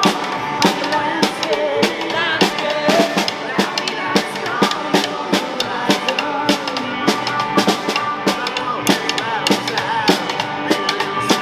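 Music with a drum kit keeping a steady beat, bass drum and snare strokes under held melodic notes.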